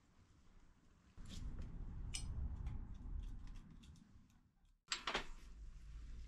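Scattered light metallic clicks and clinks of a spanner and hand tools on bicycle crank and hub parts, over a low rumble. The sound drops out for a moment about two-thirds of the way through, then a short cluster of louder clicks follows.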